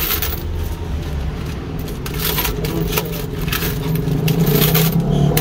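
Street traffic: a motor vehicle's engine running close by, growing louder near the end. A few light clicks and rustles come from banknotes and a metal coin tray being handled.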